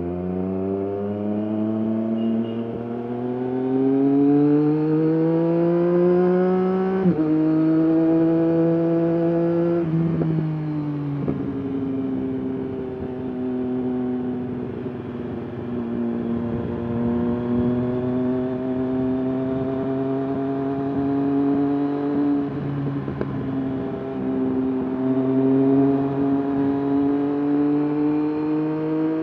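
Triumph Daytona 765 Moto2's inline three-cylinder engine and exhaust under way: the engine pulls up through the revs, drops sharply in pitch at an upshift about seven seconds in, pulls again and shifts up once more a few seconds later, then settles into a steady cruise with small throttle changes. Low wind rumble runs underneath.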